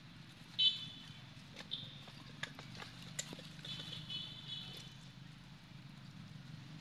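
Young macaque giving short, high-pitched squeals. The loudest comes about half a second in, and a longer run follows around four seconds in. Scattered sharp clicks and snaps of twigs and branches fall in between.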